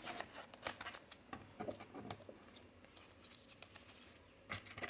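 Small accessories and packaging being handled and set down on a table: scattered light clicks and short rubbing scrapes.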